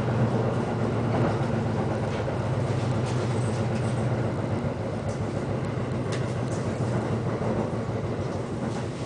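Electric local train running, heard inside the carriage: a steady low hum over rail and wheel noise, with faint clicks from the wheels, easing slightly near the end as the train nears a station.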